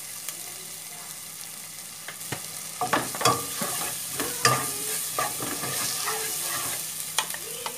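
Wooden spatula stirring and scraping fried onions, tomato and spice powders in a nonstick wok, over a steady sizzle of frying, with a few sharp knocks of the spatula against the pan.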